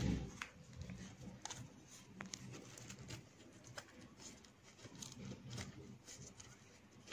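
Faint rustling and scattered small clicks of a square of paper being folded and creased by hand, with a soft thump at the very start.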